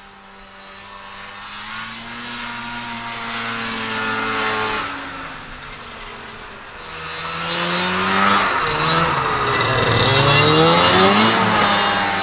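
Vintage Polaris TXL 340 snowmobile's two-stroke engine running under throttle as the sled rides across snow, the revs rising and falling. It builds up, drops away suddenly about five seconds in, then grows loudest as the sled passes close by near the end.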